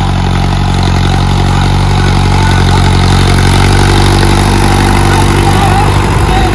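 Mahindra Arjun 605 DI tractor's diesel engine running steadily under load while it pulls a cultivator and wooden leveling plank through tilled soil.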